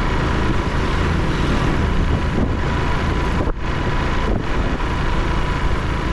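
Small motorcycle's engine running steadily while riding at road speed, heard from the rider's seat, with wind and road noise over the chest-mounted microphone.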